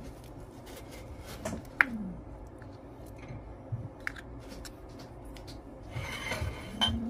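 Plastic spoon scraping wet cat food out of a small tin can, with scattered light clicks and taps against the can. Near the end there is a short clatter as the plastic food bowl is handled.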